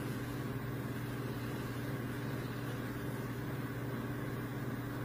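Steady low background hum that stays even throughout, with no other sounds.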